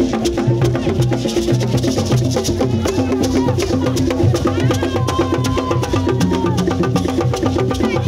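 Kadodi drums beating a fast, even rhythm, with sharp clicking percussion over the top and crowd voices. A single long high note is held for about a second and a half, about five seconds in.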